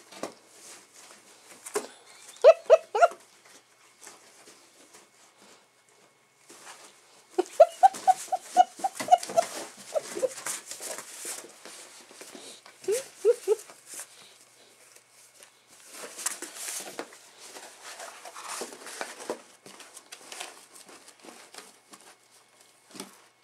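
A retriever puppy giving short high-pitched yips in small runs: three about two seconds in, a quick string of about eight near the middle, and three more a little later. Between them comes the rustling, scraping and tearing of cardboard that it is chewing and ripping apart.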